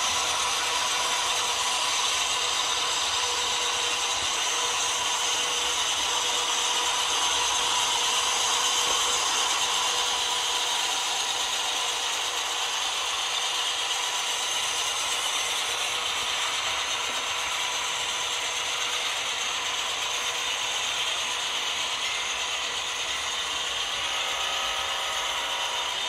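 Model train of empty coal hopper cars rolling along the layout track: a steady mechanical clatter and whir of many small wheels and the locomotives' drive gears, with a thin steady whine underneath.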